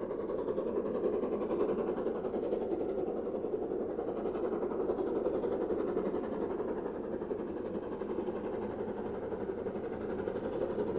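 BR Standard Class 4 2-6-0 steam locomotive approaching with its passenger train: a steady, even rumble of the working engine and train.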